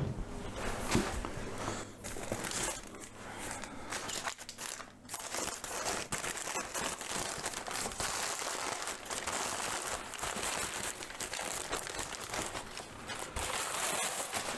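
Brown packing paper crinkling and crackling continuously as a long, narrow paper-wrapped item is unwrapped by hand.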